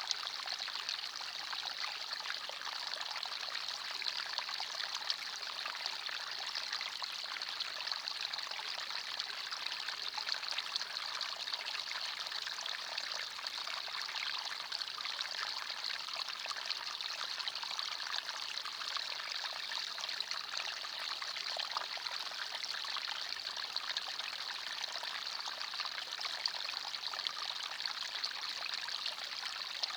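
Small forest stream running and trickling over stones: a steady, bright babble of water with fine splashes and no deep rumble.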